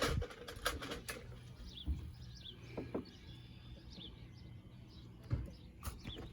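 Small birds chirping repeatedly in the background, with a few sharp clicks and knocks from parts being handled during chainsaw reassembly, over a faint steady low hum.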